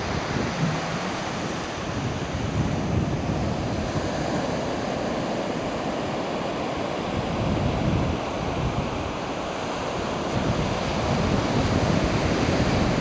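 Surf washing onto a sandy beach in a steady rush of waves, with wind buffeting the microphone.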